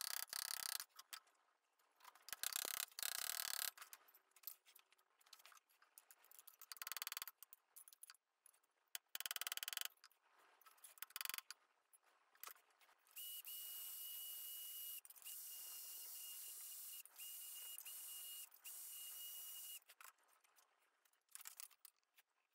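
Steel tools and workpiece on a bench vise in short, choppy clinks and scrapes. From about halfway through, five short stretches of a steady hiss with a thin high whine, each about a second and a half long and cut off abruptly.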